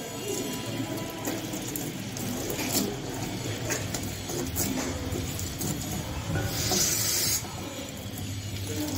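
Water gushing and splashing in uneven bursts, the loudest about seven seconds in: water being brought back up during kunjal kriya, the yogic stomach wash.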